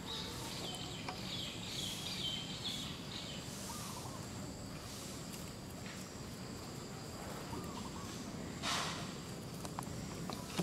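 Baby macaque giving a run of high, squeaky cries for the first few seconds while an adult macaque carries and drags it over dirt and leaves. A brief rustling scuffle near the end is the loudest sound, over steady outdoor background.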